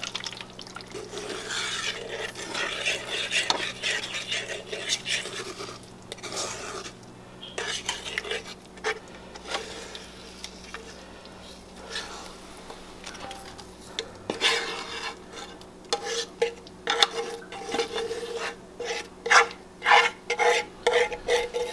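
A spoon scraping thick gravy out of a skillet and into an enamel roasting pan, with metal rubbing and clinking against the pans. The scraping comes in quicker, sharper strokes toward the end.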